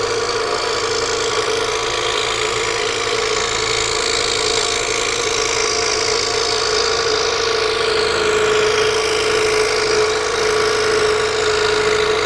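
Scroll saw running steadily, its blade cutting slowly through a mounted photograph: a steady motor hum under the hiss of the cut, which shifts slowly as the piece is turned.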